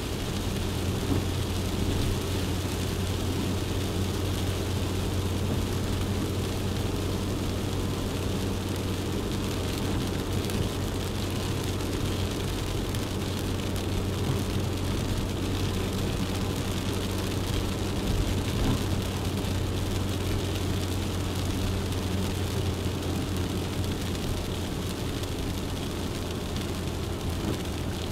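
Suzuki Jimny driving at a steady pace: an even engine drone with a constant hiss of tyre and road noise.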